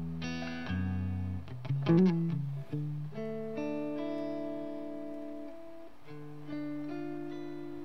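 Guitar playing slow, ringing chords and single notes, each held for a second or more, in a quiet song intro.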